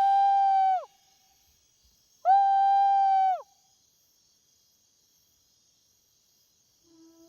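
Two long, steady-pitched howls from a man imitating a Bigfoot call, each lasting about a second and dropping in pitch as it cuts off, the second following about two seconds after the first.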